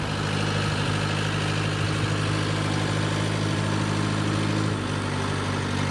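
An engine idling steadily, an even low hum that holds the same speed throughout.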